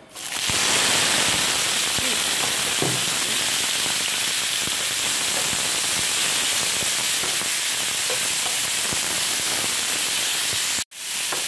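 Chopped vegetables hitting hot oil in a frying pan: a sudden, loud, steady sizzle with light crackling that goes on as they are stirred with a spatula. It breaks off for an instant near the end.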